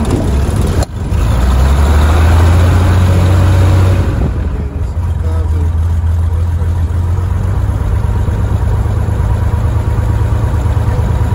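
1956 Cessna 172's six-cylinder Continental O-300 engine, heard from inside the cockpit, catching on a cold start: a short dip about a second in, then it runs fast and loud before being throttled back about four seconds in to a steady lower idle.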